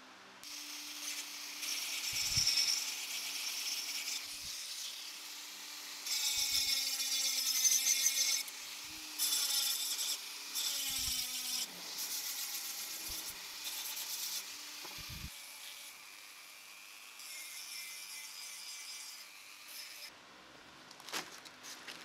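Flex-shaft rotary tool with a small sanding drum sanding an olive wood spoon. A steady motor whine runs under a rasping hiss that comes and goes in passes of one to a few seconds. The sanding fades out about twenty seconds in.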